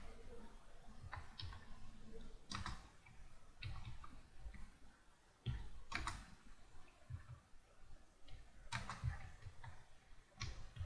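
Computer keyboard being typed on slowly and unevenly, single keystrokes clicking one or two a second with short pauses between them.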